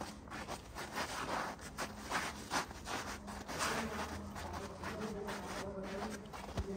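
Footsteps crunching in snow at a steady walking pace, about two steps a second, over a faint low hum.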